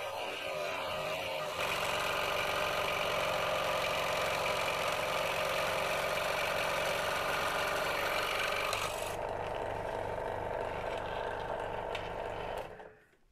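Scheppach scroll saw running, its reciprocating blade cutting a gear wheel out of thin aluminium sheet. The sharper cutting sound falls away about nine seconds in, and the saw runs down to a stop near the end.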